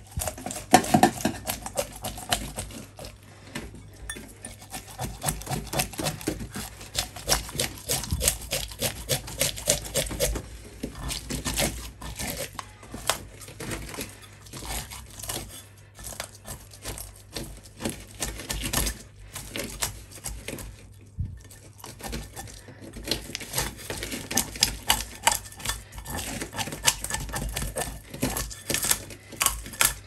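Rim of a small stainless steel bowl scraping the scales off a whole hilsa fish: quick rasping clicks, stroke after stroke, with a few short pauses.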